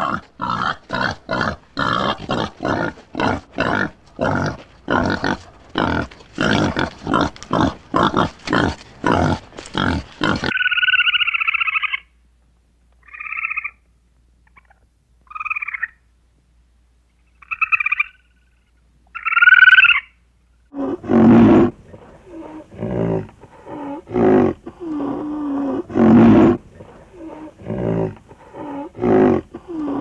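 Animal calls in three runs. First comes a fast series of harsh calls, two or three a second, for about ten seconds. Then a few short, higher-pitched calls with silent gaps between them. From about twenty seconds in, lower repeated calls follow.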